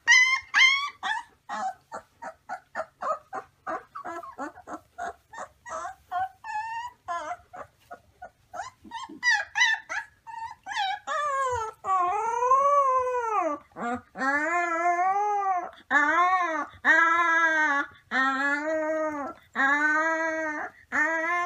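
A young canine pup giving quick, high, broken yips and whimpering cries. From about halfway it settles into a run of short howls, each rising and falling in pitch, roughly one a second.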